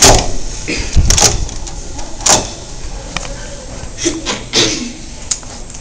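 A series of irregular knocks and thumps: a loud one at the start, two close together about a second in, another a little after two seconds, then several lighter knocks later on.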